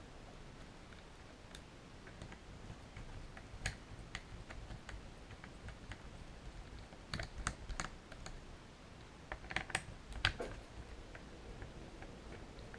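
Small, scattered clicks and taps of screws, a screwdriver and plastic parts being handled while an airsoft shotgun is taken apart, with a few louder clusters of clicks in the middle and near the end.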